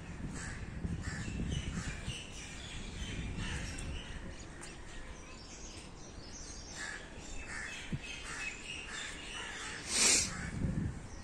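Birds calling from the surrounding trees, many short calls scattered throughout over a low background rumble, with a brief loud burst of noise about ten seconds in.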